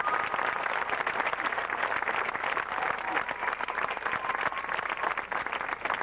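Large crowd applauding, dense steady clapping in response to a placing being announced.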